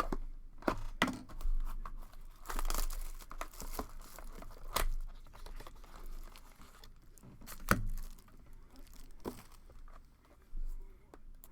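Packaging torn and crinkled as sealed boxes of baseball cards are opened, with several sharp knocks from the boxes being handled.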